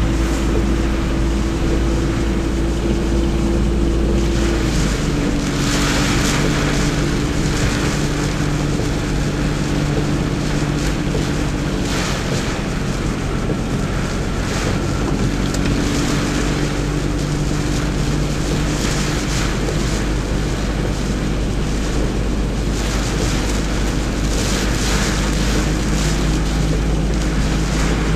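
Strong typhoon wind buffeting the microphone in gusts, with a deep rumble throughout. Under it runs a steady low hum whose pitch steps down and up a few times.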